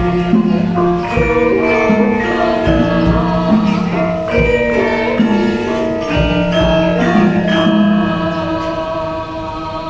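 Javanese gamelan ensemble playing a gending: bronze saron keys struck with wooden mallets ring out a steady melodic pulse over hanging gongs and kettle gongs, with voices singing along.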